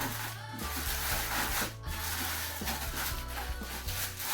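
Plastic protective film being pulled and rubbed off a kitchen appliance's base, an uneven rustling and crinkling, with background music underneath.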